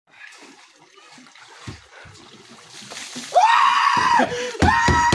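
Faint water splashing in a plastic water tank. Then two long, loud, high-pitched yells from a person, the second with rapid knocks under it.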